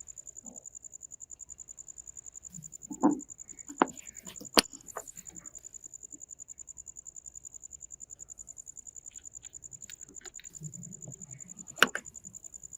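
A steady, high-pitched trill pulsing rapidly, several times a second, with a few sharp clicks and knocks of metal parts being handled, a cluster about three to five seconds in and another near the end.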